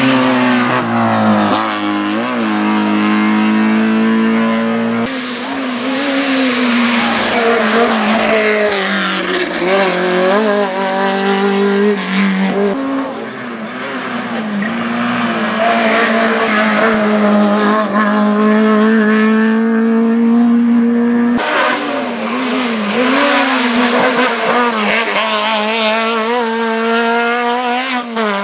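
Hillclimb racing cars, among them a classic Fiat 500, driven hard one after another, each engine running at high revs, its pitch climbing and dropping with gear changes and lifts through the bends. The engine sound changes suddenly about five seconds in and again a little past twenty seconds as a different car is heard.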